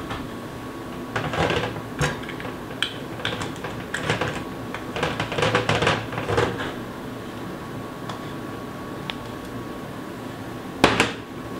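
Kitchen handling sounds while olive oil is worked by hand into a raw whole chicken: a series of short rubbing and knocking noises, with the loudest, sharpest knock near the end.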